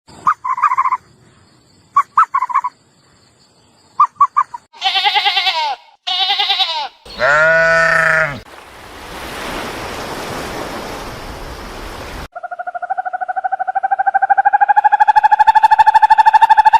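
A run of different animal calls: three groups of short high chirps, then three wavering bleat-like cries, a breathy hiss, and a long, steady, fast-pulsing call that grows louder.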